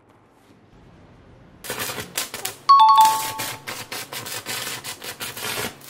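A two-note ding-dong chime sound effect, a higher note then a lower one, about a third of the way in. Around it runs a rapid, irregular string of clicks and rattles.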